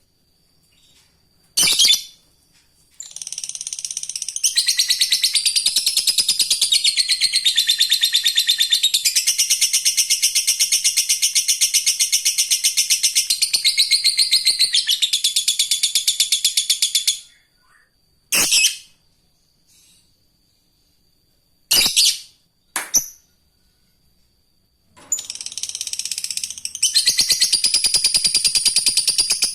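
Lovebird ngekek: a long, very fast chattering trill lasting about fourteen seconds. A few short sharp calls follow, and a second long trill starts near the end.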